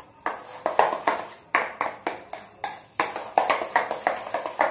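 A spoon beating soft homemade butter in a stainless steel bowl, clinking and scraping against the metal in quick rhythmic strokes, about two to three a second, a little faster near the end.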